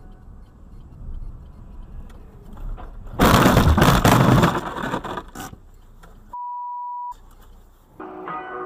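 Car road rumble, then about three seconds in a loud vehicle collision impact lasting over a second, which trails off. A steady censor bleep follows, then guitar music starts near the end.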